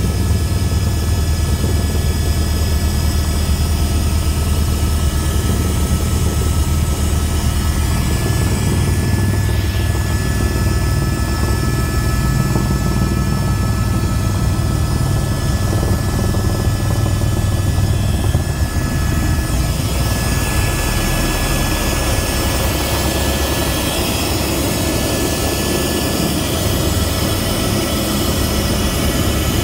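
Cabin noise of a propeller aircraft landing: a steady low engine and propeller drone with two thin, steady high whines. About two-thirds of the way through the low drone eases off and a hissier noise takes over.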